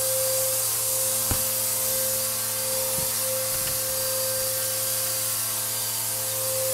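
Bissell AeroSwift vacuum cleaner running steadily, a hum under a rushing hiss, with a few sharp ticks of debris being sucked up: one about a second in, another about three seconds in.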